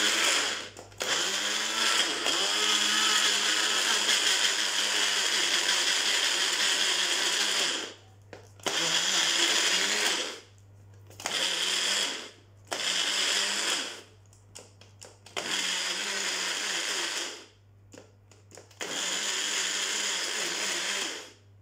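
Mixer Bullet Evolution personal blender running in pulses: one long run of about seven seconds, then several shorter bursts of one to two seconds with pauses between them. It is puréeing chopped vegetables with no water added.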